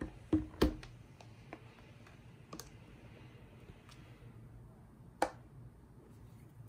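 MacBook Pro laptop handled on a table: two knocks in the first second, then a few scattered clicks from its keyboard, with one sharper click about five seconds in.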